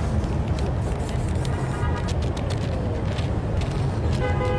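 Steady low rumble of street traffic, with a few short spray-paint can hisses and clicks. A pitched sound enters near the end.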